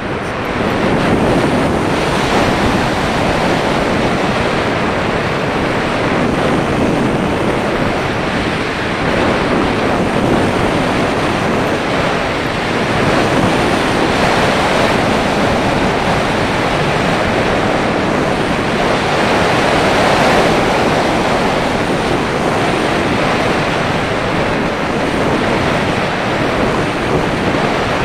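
Loud, steady rush of airflow over the microphone of an action camera riding on the nose of a moulded slope-soaring glider in flight, swelling a little now and then.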